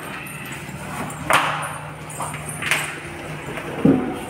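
A wooden door and its metal lock being handled: two sharp clacks about a second and a half apart, then a duller thud near the end, over a faint steady hum.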